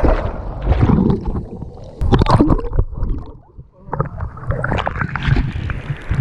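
Sea water sloshing and splashing around an action camera held at the surface by a swimmer, the camera dipping underwater at first. The splashing comes in irregular rushes, with a short lull a little past the middle.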